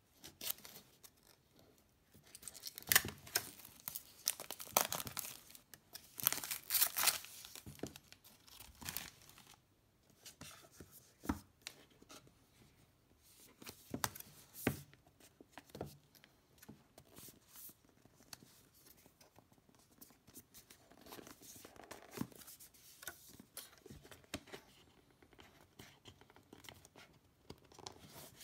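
Packaging of a Google Chromecast box being torn open and crinkled, in loud noisy bursts through the first ten seconds or so. After that come scattered rustles, scrapes and taps as the cardboard box is turned and handled.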